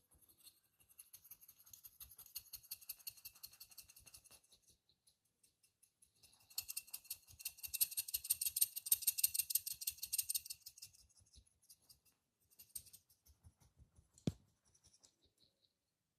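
Barber's fingers rubbing and scratching on skin and hair during a massage: fine, dense crackling in two spells, the second louder, then a few light ticks and one sharp click about fourteen seconds in.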